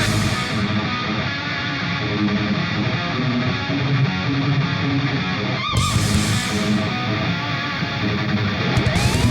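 Background music with electric guitar, in a heavy rock style.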